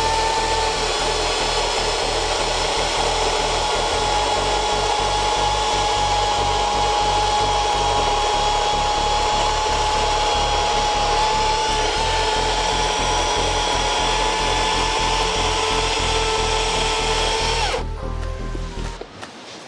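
EGO 56V 16-inch cordless chainsaw cutting under load through a thick log, a steady high whine from the motor and chain that stops near the end. Background music with a steady bass beat plays underneath.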